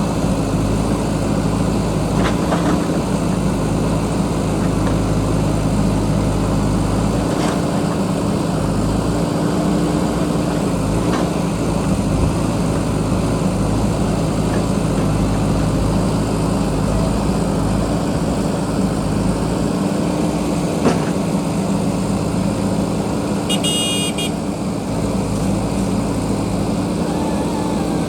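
JCB backhoe loader's diesel engine running steadily while the machine digs, with a few faint knocks. Near the end comes a brief high-pitched tone.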